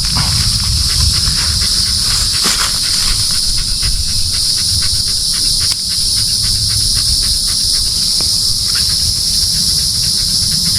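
Steady, loud chorus of insects buzzing in one unbroken high band, with a low rumble beneath.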